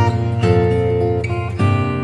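Background music: acoustic guitar notes plucked and strummed, a new chord about every half second.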